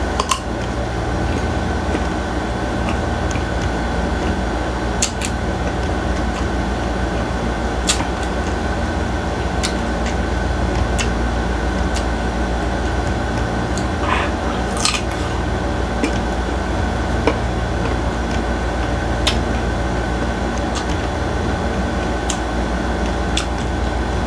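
Chewing bites of crisp green mango, with a few sharp crunches scattered at irregular moments, over a steady machine hum in the room.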